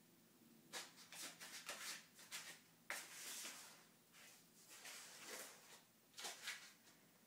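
Kitten scrabbling at a cardboard box: a series of faint scrapes and rustles that start about a second in and stop near the end.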